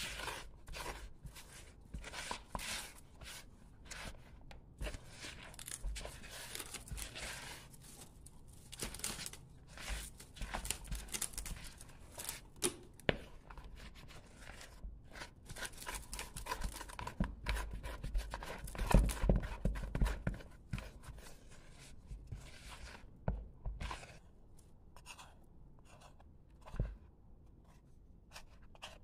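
Wooden spoon stirring and folding a wet, sloppy no-knead bread dough in a bowl: irregular scraping and sticky strokes, with a cluster of louder thumps about two-thirds of the way through.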